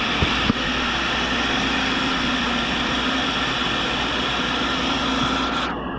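Tool and cutter grinder running steadily, a constant hiss with a steady whine, with two short clicks about half a second in. The high hiss drops away near the end.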